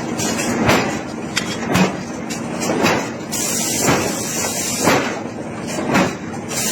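Hammer blows on iron being forged, struck at an even pace of about one a second over a steady background noise.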